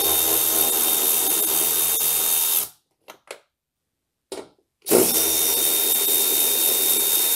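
Milwaukee Fuel brushless cordless ratchet spinning off the 10 mm airbox nuts: it runs with a steady high whine, stops about two and a half seconds in, and runs again from about five seconds in, with a couple of light clicks in the gap.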